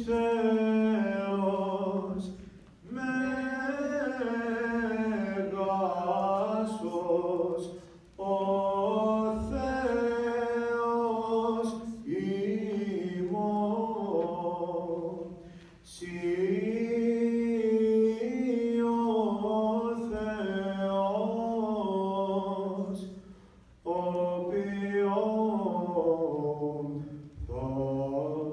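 Orthodox liturgical chant sung unaccompanied. It comes in phrases of a few seconds with held notes, separated by short pauses for breath.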